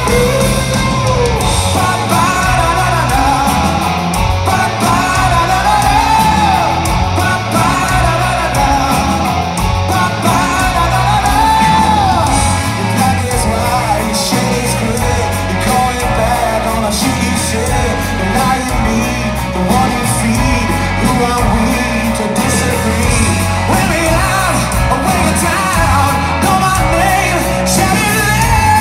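Live rock band playing loud: a male lead singer's vocals over electric guitar, bass and drums, without a break.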